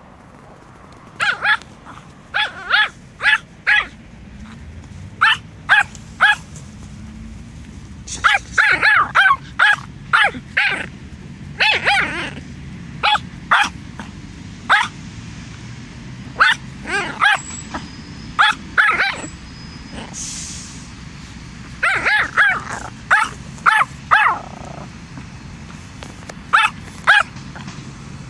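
Yorkshire terrier barking at an apple in the grass: many short, sharp, high-pitched barks in quick runs with brief pauses between them.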